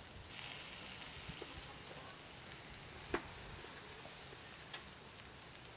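Stuffed field snails sizzling in their shells on a wire grill over charcoal: a steady soft hiss with scattered crackles and one sharp pop about three seconds in.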